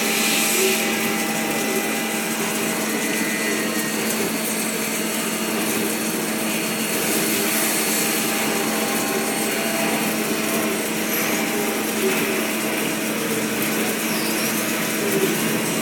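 CNC lathe running: a steady machine hum and whine, with faint short squeals coming and going high up.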